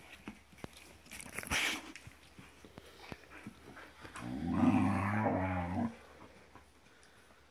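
A dog's low play-growl lasting about two seconds, starting about four seconds in, as a husky and a curly-coated doodle wrestle. A short rush of noise comes about a second and a half in.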